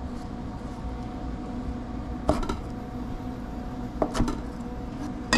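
A chef's knife slicing a tomato into wedges, the blade knocking sharply on a plastic cutting board about three times, over a steady background hum.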